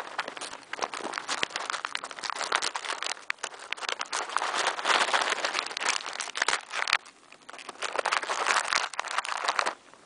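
Close crinkling and rustling of a hand rummaging in a jacket pocket, a burst of irregular crackles that pauses briefly about seven seconds in and stops just before the end.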